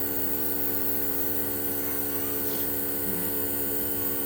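Compressor nebulizer running with a steady electric hum.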